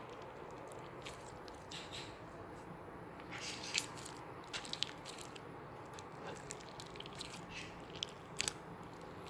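Clear slime mixed with small 'frog egg' bead add-ins being kneaded by hand, giving scattered crackling clicks and squishes over a faint hiss. The sharpest clicks come about four seconds in and again near the end.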